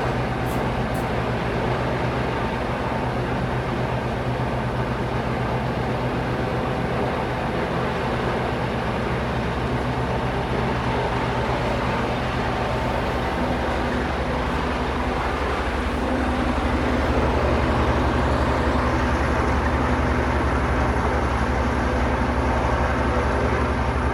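A steady, loud engine drone with a deep hum. About two-thirds of the way through, the tone shifts and it gets a little louder, as the engine changes speed.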